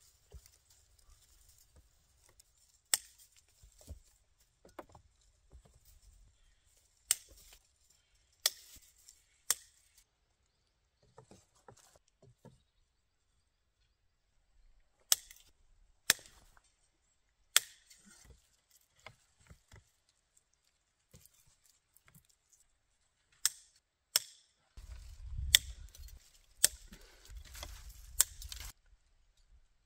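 A dozen or so sharp, irregular strikes on wood, like a blade chopping or splitting sticks, spaced a second or more apart, with a denser run of handling noise and strikes near the end.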